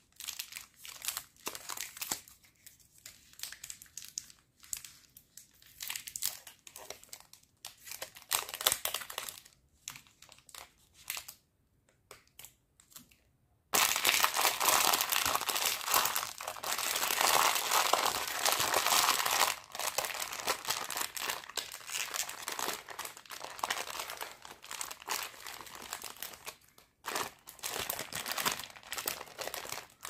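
Candy wrappers crinkling in the hands. First come short, scattered rustles from a KitKat Duo bar's wrapper, with a brief quiet gap. About halfway in, louder continuous crinkling begins as a Bon Pari gummy-candy plastic bag is squeezed and pulled open.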